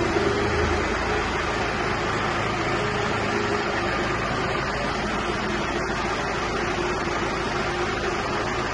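John Deere 5090 tractor's diesel engine running steadily.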